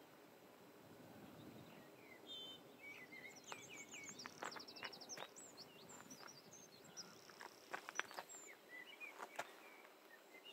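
Faint small birds chirping, with a short rapid trill and a held high note, over quiet outdoor background hiss; a few soft ticks are scattered among the calls.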